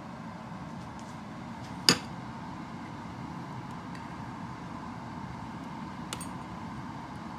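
Steady low hum of a running household appliance, with one sharp click about two seconds in and a lighter click near the end.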